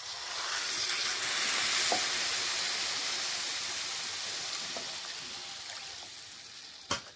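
Water poured into a hot kadhai of fried rice, potatoes, peas and spices, hissing and sizzling loudly as it hits the hot oil, then slowly dying down. One sharp knock near the end.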